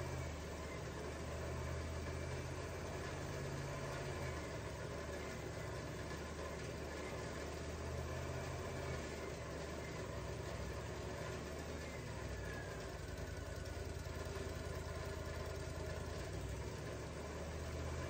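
An engine idling steadily, a low hum that swells and fades slightly in strength.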